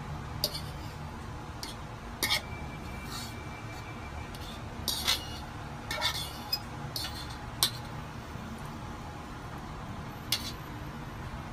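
A metal fork scraping and clinking against a ceramic bowl and plate as noodle salad is scraped out: about a dozen irregular clinks, the loudest a little over two seconds in, around five to eight seconds in, and once more near the end, over a steady low hum.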